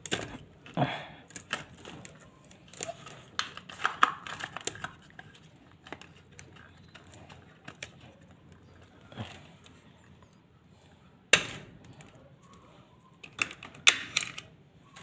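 Hand-tool work on electrical wire up close: scattered clicks and snaps of pliers and handled wire, with light rustling between them. The two loudest snaps come about eleven and fourteen seconds in.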